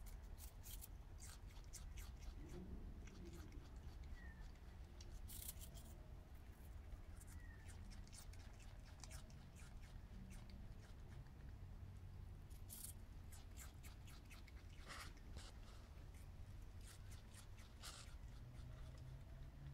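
Common brushtail possum chewing food held in its paws: quiet, irregular crisp clicks and crunches.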